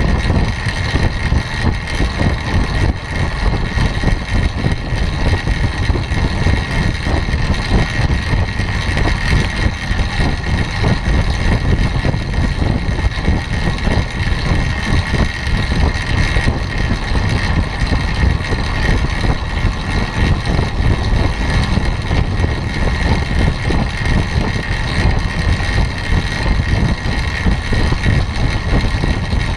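Steady rush of wind over a bicycle-mounted camera's microphone, mixed with the hum of track-bike tyres on a wooden velodrome surface at about 24 mph.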